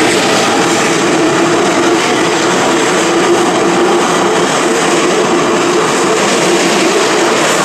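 Keikyu Main Line train running past at the level crossing: a steady, loud rolling noise with a steady hum running under it.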